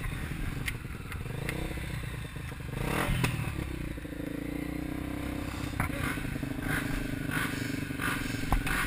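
450 cc four-stroke dirt bike engine running at low revs, with a brief rev about three seconds in, then a steady low-speed run. Scattered knocks and clatter come from the bike working over rock.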